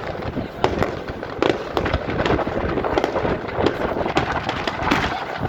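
Fireworks display going off: a dense, irregular run of bangs and crackles, several a second.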